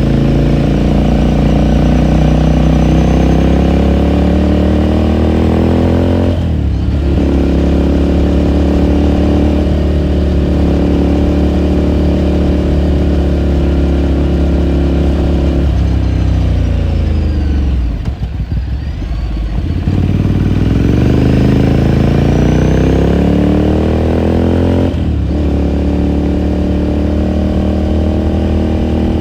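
2018 Ducati Scrambler Sixty2's air-cooled L-twin engine running under way, its pitch climbing as it accelerates, with a brief break for a gear change about six seconds in. Past the middle the revs fall away as it slows, then it picks up and climbs again, with another gear change near the end.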